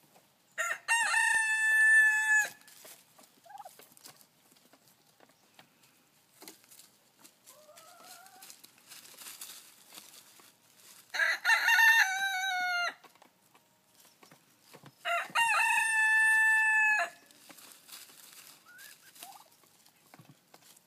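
Silkie rooster crowing three times, each crow lasting about two seconds: about a second in, at about eleven seconds, and at about fifteen seconds. Faint clucking in between.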